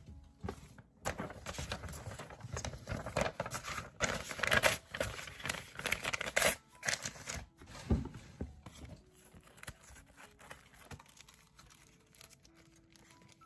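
Paper mail and envelopes being handled: sheets rustling, shuffling and crinkling in quick bursts, loudest in the middle. A single thump about eight seconds in, then quieter paper handling.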